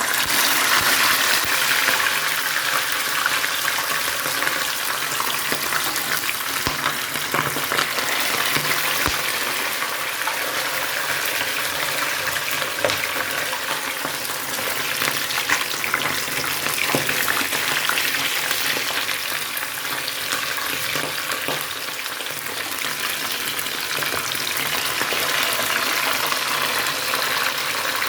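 Parboiled meat frying in hot groundnut oil in a frying pan: a loud, steady sizzle with fine crackling pops, starting abruptly as the meat goes into the oil.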